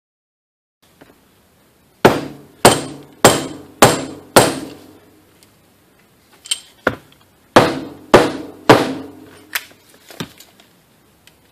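Steel gear shaft from a Honda S40 five-speed transmission being knocked hard against a steel bench top, sharp metal-on-metal knocks that each ring briefly. A run of five knocks about half a second apart comes about two seconds in, then a few lighter taps and a second run of about four knocks.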